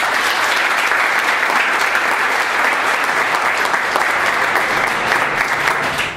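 Audience applauding: many hands clapping in a dense, steady patter that stops sharply at the end.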